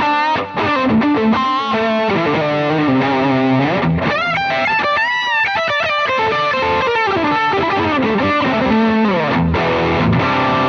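Semi-hollow electric guitar played through a Wampler Pantheon overdrive into an AMT Pangaea CP100 cabinet-IR pedal, recorded direct. The preset aims at a Vox-style amp with a Celestion cabinet IR. Overdriven lead lines with string bends around the middle and held notes.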